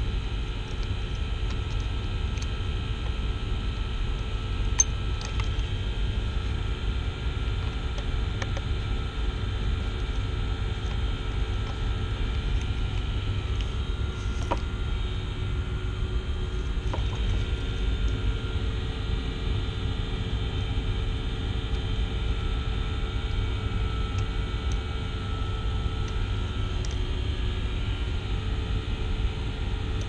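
Steady drone of running machinery: a low rumble with several steady tones above it. A few light clicks of small parts being handled break through, the sharpest about five seconds in.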